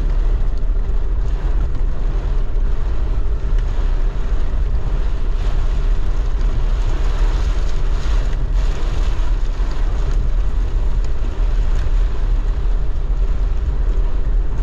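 Strong thunderstorm wind blowing across the microphone: a loud, steady rushing noise with deep buffeting rumble.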